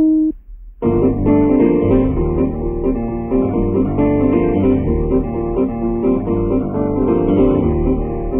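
The last of three pitched cue tones on the guided-tour cassette ends just as the sound opens. About a second in, instrumental piano-led music starts and carries on as a steady, rippling run of notes.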